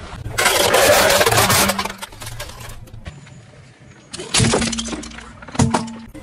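Car tyre rolling over and crushing toys: a long loud crunching burst about half a second in, then two sharp cracks of breaking plastic about a second and a half apart near the end.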